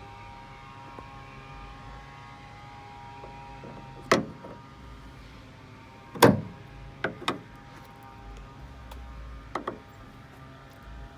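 A handful of sharp clicks and knocks a second or more apart, the loudest about six seconds in: new trunk lift supports being snapped onto their ball studs and handled at the trunk lid. A faint steady hum runs beneath.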